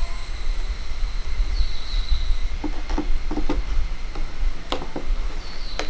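A steel knife pressed down through a slab of set peanut-jaggery candy, its blade knocking on the wooden board in a handful of sharp clicks, mostly in the second half. Under it runs a steady low rumble and a faint high-pitched whine.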